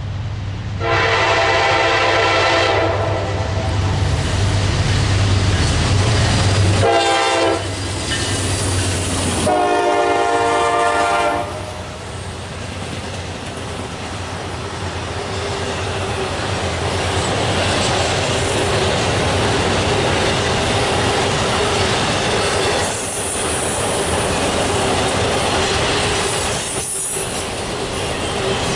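Diesel locomotive's multi-chime air horn sounding three times: a long blast, a short one about seven seconds in, and another long blast around ten seconds, over the low drone of the engine. Then the train's cars roll past with steady wheel clatter and a faint wheel squeal.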